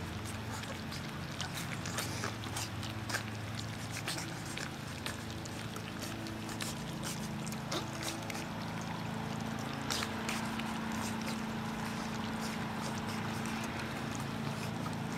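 A litter of four-week-old English Shepherd puppies lapping and smacking at food in a metal pan: a steady scatter of small wet clicks, over a constant low hum.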